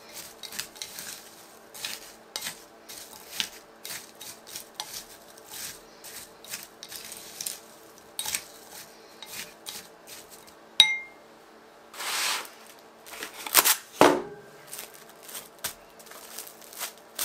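Kitchen utensils clinking and knocking against a bowl and dishes in a run of light clicks, with a louder clatter and a heavy knock about twelve to fourteen seconds in, over a low steady hum.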